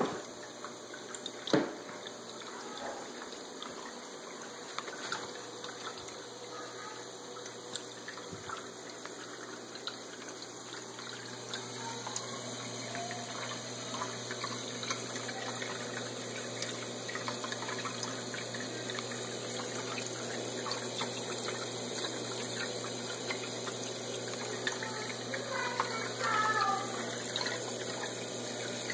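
Water running and splashing steadily into a shallow turtle tank, growing a little louder after about ten seconds. One sharp click about a second and a half in.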